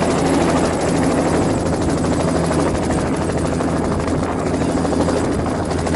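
Bell 206 helicopter running on the ground with its main rotor turning at speed: a steady, even turbine and rotor noise that holds without change.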